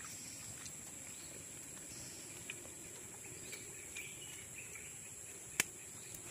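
Small stick campfire crackling with scattered faint ticks and one sharp crack near the end, over a steady high insect drone.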